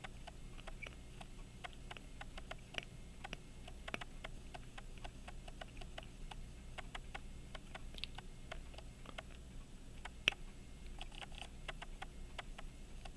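Faint, irregular small clicks and taps of a small screwdriver working a tiny screw into the pocket watch movement, with one sharper click about ten seconds in.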